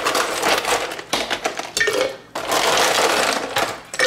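Ice cubes clattering as they are scooped by hand from a plastic tub and dropped into a glass pitcher of sangria, in two long bursts with a short pause about two seconds in.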